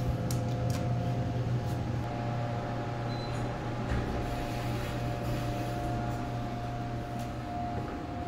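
Elevator car travelling: a steady low hum with a fainter higher whine, which stops shortly before the end as the car arrives. A few light clicks near the start.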